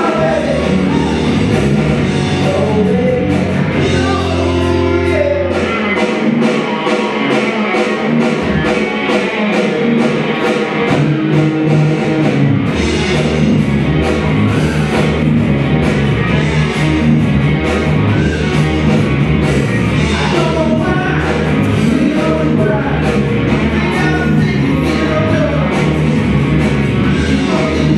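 Live rock band playing loud, amplified: electric guitars, an electronic drum kit and a male singer at the microphone. The low bass drops out about six seconds in, with the drums and guitar carrying on, and the full band comes back in around twelve seconds.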